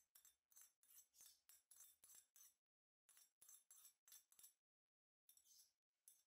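Faint metal spoon scraping and clinking against a ceramic plate, about three quick strokes a second, as minced garlic is scraped off it, with a short break about halfway through.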